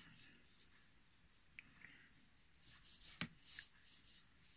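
Faint scraping of a kitchen knife's steel edge being pushed back and forth across a wet 2000-grit Chinese natural whetstone during freehand sharpening, clearest in the second half, with one short click about three seconds in.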